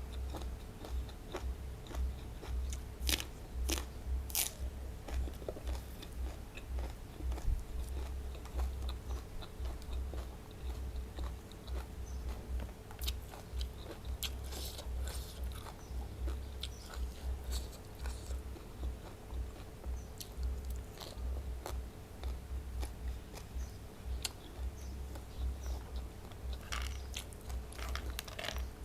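Close-miked eating sounds: steady rhythmic chewing of papaya salad with pickled crab and raw vegetables, broken by sharp, crisp crunches now and then.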